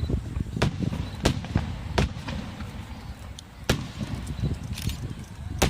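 Aerial fireworks bursting: a string of sharp bangs, several in the first two seconds, another a little before four seconds and a loud one near the end, over a steady low rumble, with a short crackle around the five-second mark.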